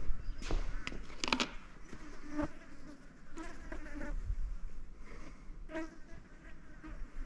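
Flies buzzing close to the microphone in short passes, with a few sharp clicks and knocks from handling a plastic oil bottle and funnel.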